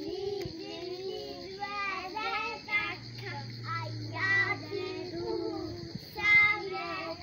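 Young children's voices singing together as they circle hand in hand in a ring game, with one louder high call about six seconds in.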